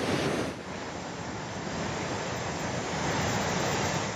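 River in flood, muddy water rushing and churning over rocks in a steady, noisy rush. The sound dips briefly about half a second in and then carries on.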